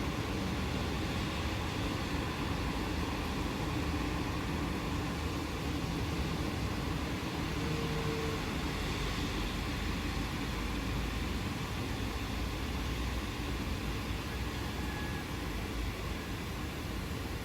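Steady rainfall with a continuous low rumble underneath, easing slightly near the end.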